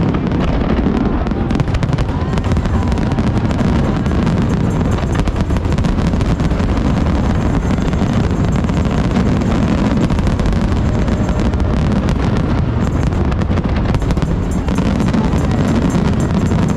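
Fireworks going off: a dense, continuous run of bangs and crackles.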